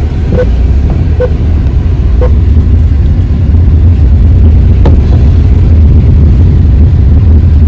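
Loud, steady low rumble of a car on the move, heard from inside the cabin.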